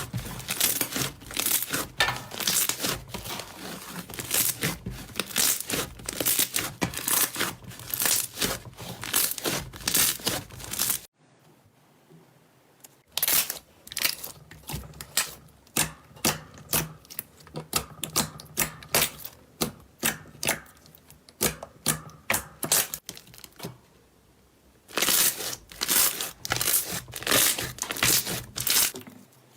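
Slime being squeezed and stretched by hand, giving dense runs of crackling, popping clicks. The clicking drops out about a third of the way in, comes back softer and sparser, then turns loud and dense again near the end.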